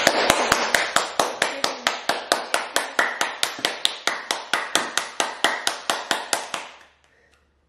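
Rapid, even hand slaps, about five or six a second, kept up for nearly seven seconds and then stopping.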